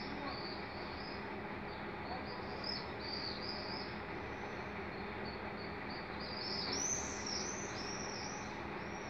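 Small birds chirping over and over, busiest about two-thirds of the way through, over a steady low hum and noise from the concrete mixer truck's engine running.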